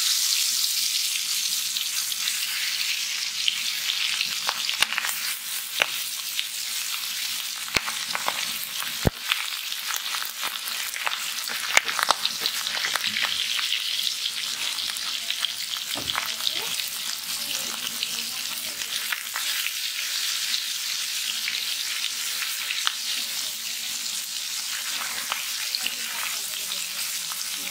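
Rohu fish pieces sizzling in hot oil in an iron karahi, loudest at first as the pieces go into the oil and then a steady frying hiss. Occasional sharp pops and clicks sound over it.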